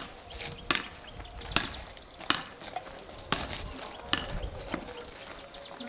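Toy plastic rackets striking a ball back and forth in a rally, sharp clacks about once a second, with feet shuffling and crunching on gravel between the hits.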